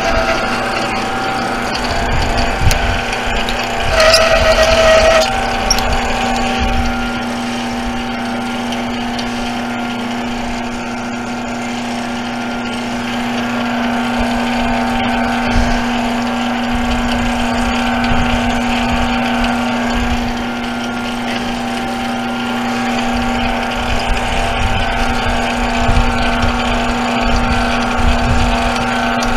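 Small 8 x 12 metal lathe running steadily with a constant motor hum. About four seconds in there is a brief louder, higher-pitched sound lasting about a second.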